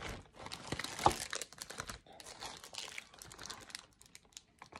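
Thin plastic packaging crinkling and rustling as it is handled and gathered up, irregular and stop-start, with small clicks and knocks.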